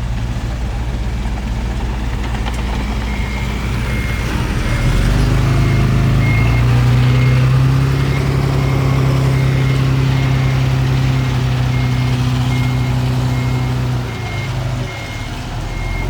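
Heavy diesel truck backing up, its reversing alarm beeping steadily from about three seconds in. The engine revs up and grows louder about five seconds in, holds, then eases off near the end.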